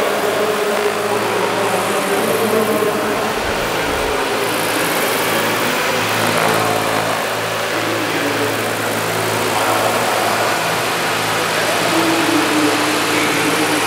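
Electric-powered RC model CH-47 Chinook tandem-rotor helicopter hovering, its motors and two rotors giving a steady hum with a few held low tones.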